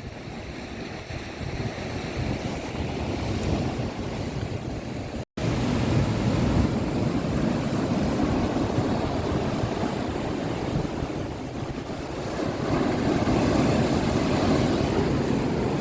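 Sea waves washing on the shore with wind rumbling on the microphone, in a steady wash of noise; a brief dropout about five seconds in, after which it is louder.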